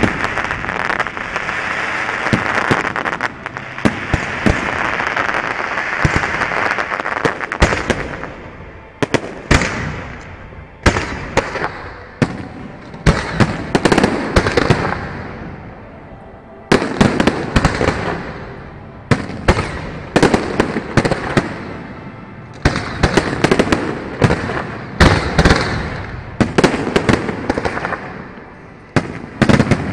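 Fireworks display: aerial shells bursting in rapid volleys of sharp bangs, each volley dying away before the next begins. For the first eight seconds the bangs sit over a dense steady hiss.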